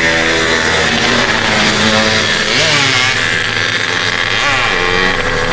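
Engine of a vehicle passing on the road close by, loud and noisy, its pitch rising and falling as it revs.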